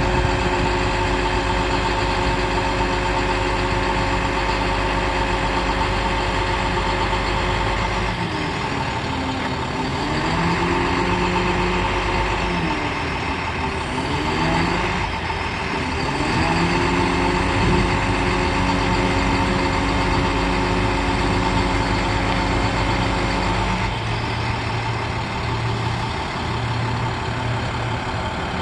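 International MaxForce DT466 turbo diesel running steadily while the Altec aerial boom is operated. Its drone shifts and wavers in pitch from about a third of the way in until a few seconds before the end, then settles back to a steady tone.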